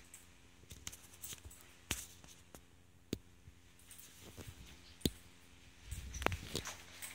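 Faint, scattered clicks and taps over quiet room tone, with a low rumble near the end: handling noise from a handheld camera being carried through a room.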